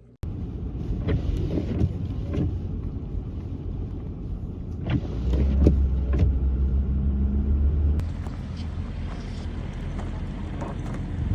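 A motor vehicle running, with a dense low rumble and scattered knocks and clatter. A steadier low engine hum swells about halfway through and drops back near the end.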